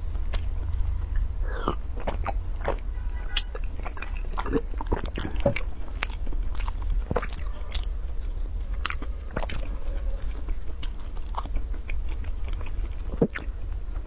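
Close-miked eating sounds of someone biting and chewing soft mung bean cakes: irregular wet clicks and smacks, over a steady low hum.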